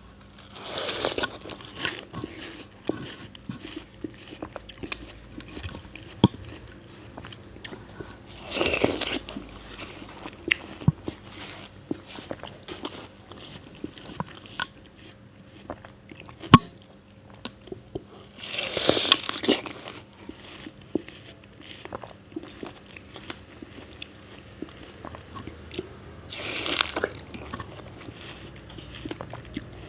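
Close-miked bites into fresh watermelon: four juicy crunches of about a second each, some eight to ten seconds apart, with wet chewing and small mouth clicks between them.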